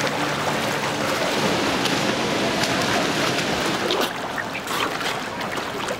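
Swimming-pool water splashing and churning as a swimmer thrashes at the surface, with sharper splashes from about two and a half seconds in.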